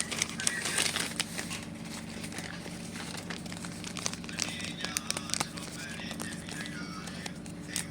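Crinkling and rustling of a handmade blind bag being handled and opened, with irregular small crackles.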